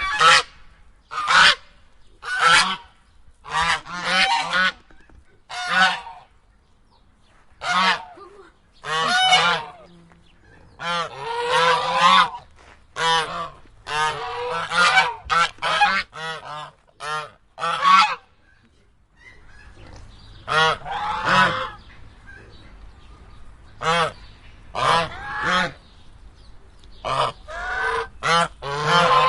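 Cackling geese calling: short, high honks in quick bouts separated by brief pauses, with a dense run of overlapping calls from several birds about eleven to thirteen seconds in.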